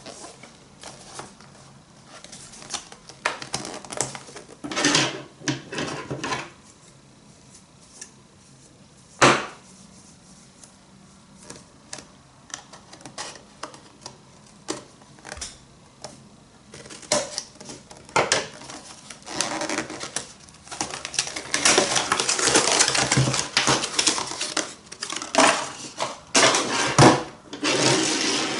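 Items and packaging being handled and unpacked: irregular clicks, taps and rustling, with one sharp click about nine seconds in and a longer stretch of continuous rustling past the middle.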